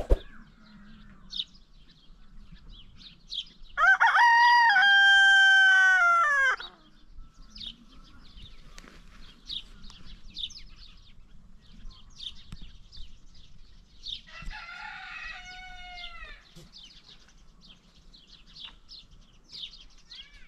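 Rooster crowing twice: one loud, long crow about four seconds in and a fainter one near the middle. Short bird chirps run on between the crows.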